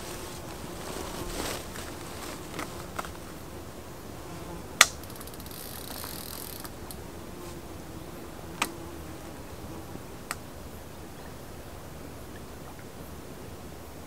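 Steady hiss of a flowing river with an insect buzzing faintly at times, broken by a few sharp clicks, the loudest about five seconds in.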